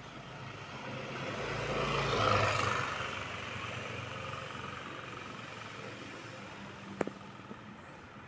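A motor vehicle driving past on the street, its engine and tyre noise swelling to a peak a little over two seconds in and fading away over the next couple of seconds. A single sharp click about seven seconds in.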